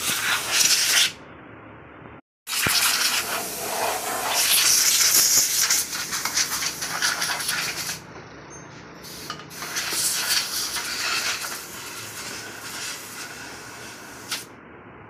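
Compressed-air blow gun hissing in long bursts with short breaks, blowing dust out of a hybrid battery pack.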